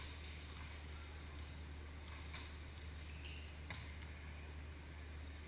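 Two faint sharp hits of a volleyball being played during a rally, about two and three and a half seconds in, over a steady low hum.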